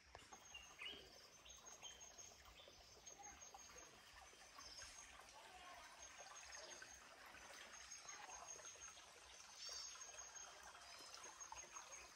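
Faint forest ambience: a small shallow stream trickling over stones, with scattered bird chirps.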